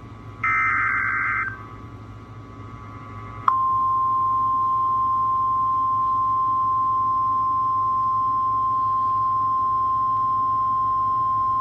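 An emergency alert broadcast: a warbling digital data burst lasting about a second (an EAS/SAME header), then, about three and a half seconds in, a single steady high-pitched alarm tone begins and holds unbroken. This is the National Weather Service warning alarm tone that precedes a severe thunderstorm warning.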